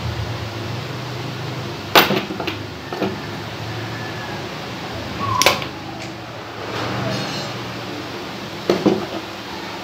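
Nail nippers snipping through a thick, curled toenail: a few sharp snaps, one about two seconds in, two more within the next second, another around five and a half seconds, and a close pair near the end. A steady low hum runs underneath.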